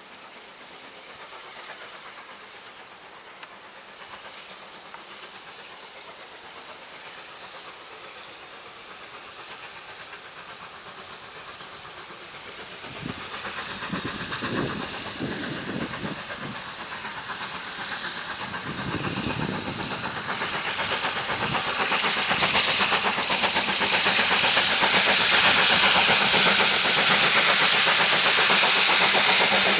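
GWR Manor class 4-6-0 steam locomotive No. 7802 working a passenger train and drawing steadily nearer. Its exhaust beats come through from about halfway, and over the last few seconds it is loud and close, with a strong hiss of steam.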